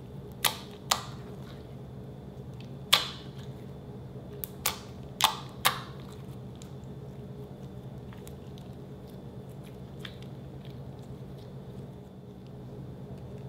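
White slime being stretched, folded and pressed by hand, giving sharp clicking pops of trapped air: about seven in the first six seconds, the loudest about three seconds in, then only quieter handling.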